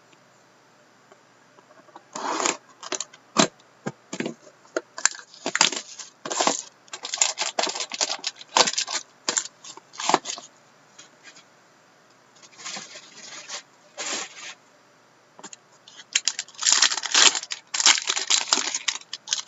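Plastic wrapping and packaging of a sealed box of trading cards being torn open and handled: irregular crinkling and tearing in bursts, with short pauses between.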